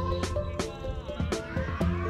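Background music: sustained melody notes over a steady bass line, with regular drum hits.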